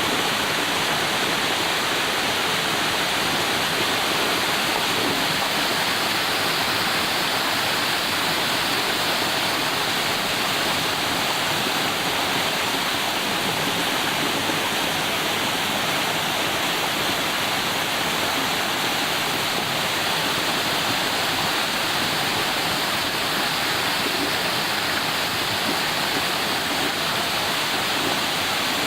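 Waterfall rushing steadily, a continuous roar of cascading water.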